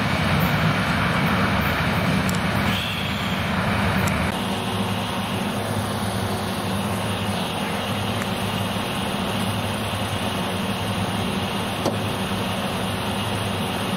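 Steady hum of a motor vehicle's engine with road noise, dropping suddenly about four seconds in to a quieter, even hum.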